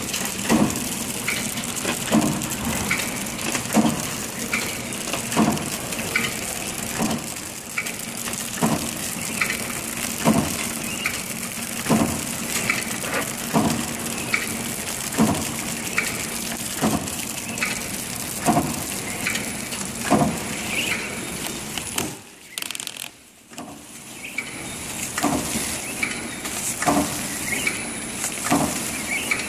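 Horizontal flow-wrap (pillow) packing machine running at about 40 packs a minute: a steady motor hum with a thin high whine, and a regular clacking from its sealing and cutting mechanism about once every 0.8 seconds. The sound drops briefly about 22 seconds in.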